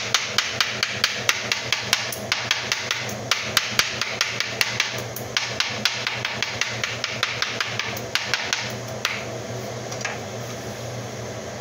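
Kitchen knife chopping greens finely on a cutting board: quick, even strikes about three a second that stop about nine seconds in, followed by one or two last cuts.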